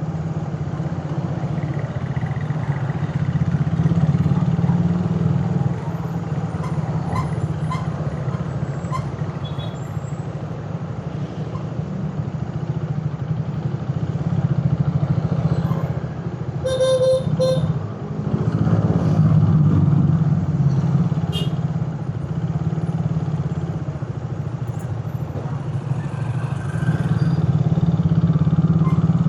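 Suzuki Raider 150's carburetted single-cylinder four-stroke engine running on the road, its level rising and easing with the throttle. A vehicle horn sounds briefly a little over halfway through.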